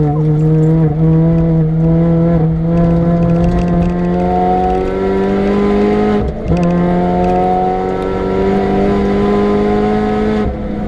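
Supercharged R53 Mini Cooper's four-cylinder engine pulling hard, its note rising steadily through a gear. About six seconds in there is a quick upshift, and it climbs again before the note drops away near the end.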